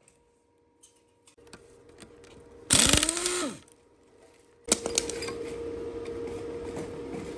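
A handheld power tool runs in a short burst that winds down in pitch, then starts again about two seconds later and keeps running steadily, after a few faint clicks of handling.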